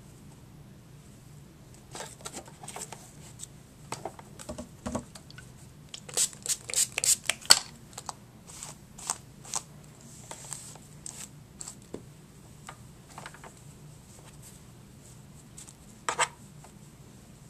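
Doll hair being handled and twisted by hand: soft irregular rustling with scratchy strokes, a quick run of them about six seconds in and a short one near the end.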